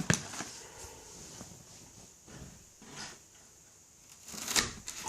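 Scattered light clicks and knocks from handling new straight-cut sheet metal shears, with a louder pair of sharp clicks about four and a half seconds in.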